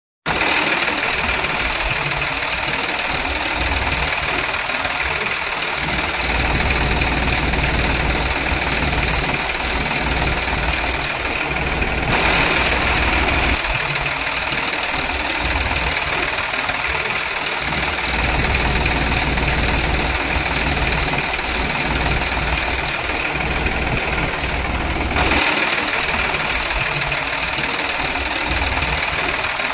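Small electric motor and gearbox of a homemade mini truck running steadily with a gear whine, in several stretches that change abruptly about 12 and 25 seconds in.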